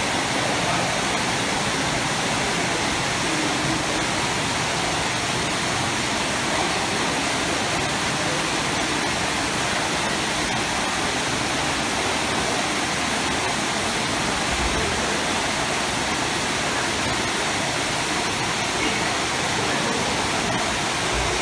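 Spa hydrotherapy pool bubbling and churning from its jets, with water spouts pouring into it: a steady rush of water.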